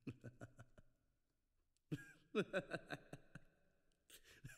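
A man chuckling in three short runs of quick laughs. The loudest run comes about two seconds in, and a shorter one near the end.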